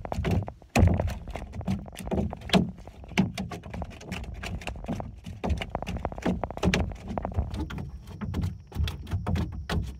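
A freshly landed largemouth bass flopping in the bottom of a canoe, its body slapping and knocking against the hull in rapid, irregular thumps, several a second.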